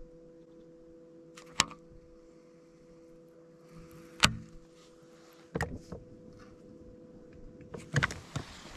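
Steady hum of a bass boat's electric trolling motor, broken by four short sharp knocks, the loudest about halfway through.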